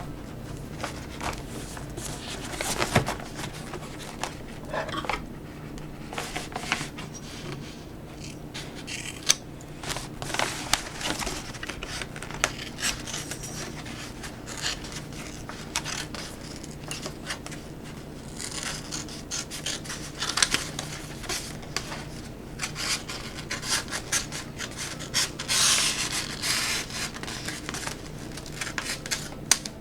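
Scissors cutting a sheet of plastic-and-paper adhesive film, with irregular clicks, rubbing and rustling as the sheet is handled and cut.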